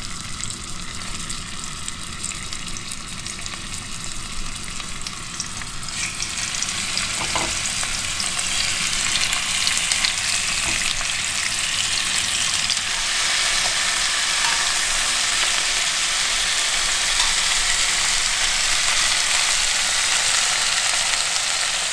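Rolled, stuffed beef slices sizzling in hot oil in a casserole pot, laid seam side down to seal the seam. The frying grows louder as more rolls go into the pan, with a step up about six seconds in and another partway through.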